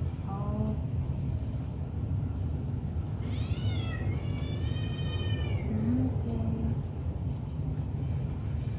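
Domestic cat meowing twice, about three seconds in: a short meow that rises and falls, then a longer, drawn-out one. A steady low rumble runs underneath.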